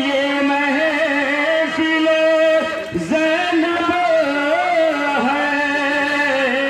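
A man singing Urdu devotional verse in a melodic, drawn-out recitation style, holding long notes that waver slightly, with a short break about three seconds in.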